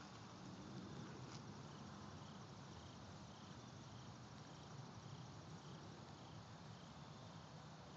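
Near silence with a low hiss, and faint insects chirping high and evenly, about twice a second.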